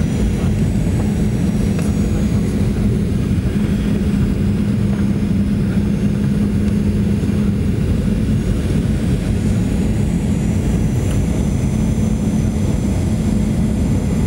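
Cabin noise of a Boeing 737 jet airliner on approach: a steady rumble of engine and airflow with a constant low hum, heard inside the cabin beside the engine.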